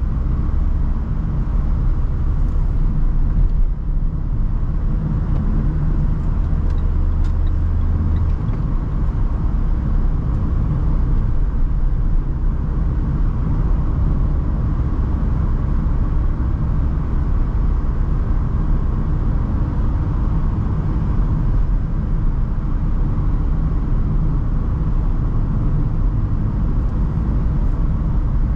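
Renault Trafic van on the move: steady engine and road noise, mostly low, with a low engine hum that drops out about eight seconds in.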